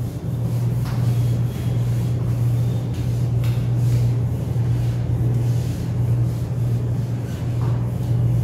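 A steady low hum, with faint rubbing strokes of a duster wiping a whiteboard clean.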